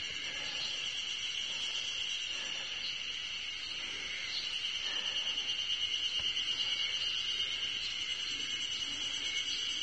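A chorus of Ezo spring cicadas (Terpnosia nigricosta) calling: a steady, high-pitched, shrill drone that swells slightly in the middle.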